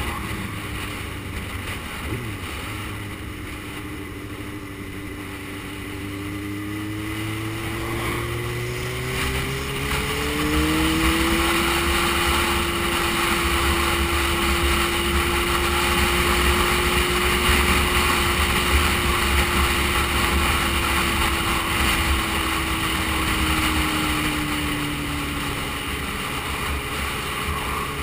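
Motorcycle engine running at road speed with wind and road noise rushing past. The engine note climbs as the bike speeds up about ten seconds in, holds steady, then drops a little near the end.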